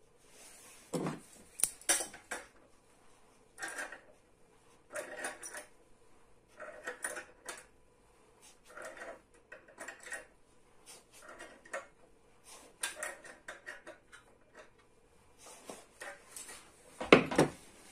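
Metal clinking and clicking as a nut at the hub of a plastic table base is worked on with a flat spanner, in short clusters about every second, with a louder knock near the end.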